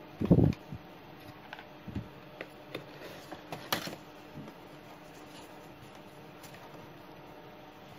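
Handling noise from a plastic digital multimeter and its test leads being moved about over a cardboard box: a dull thump just after the start, then scattered light clicks and rustles, with one sharper click a little under four seconds in.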